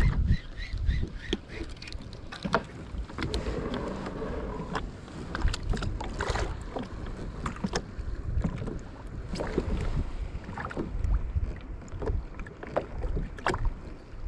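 Wind rumbling on the microphone aboard a fishing kayak at sea, with many scattered short clicks and knocks from gear being handled.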